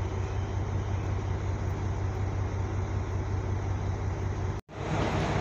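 Steady low idling rumble of a diesel railcar's engine, under a haze of station noise; it breaks off for an instant near the end.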